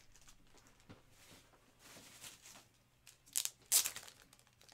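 Plastic trading-card packaging being handled, crinkling and tearing in short rustles, with two quick loud rips a little past the middle.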